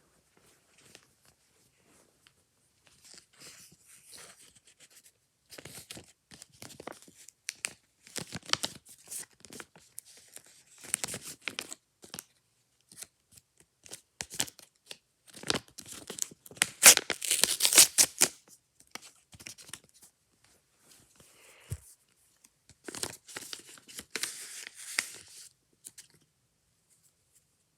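Plastic packaging being torn and crinkled open by hand, in irregular bursts of crackling, loudest about halfway through.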